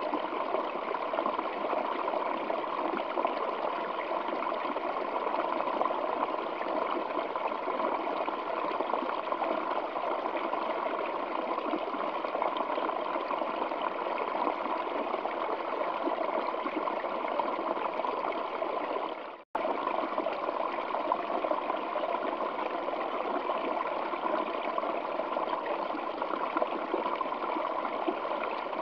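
Waterfall pouring over rocks: a steady, even rush of water, broken once for a split second by a sudden drop-out about two-thirds of the way through.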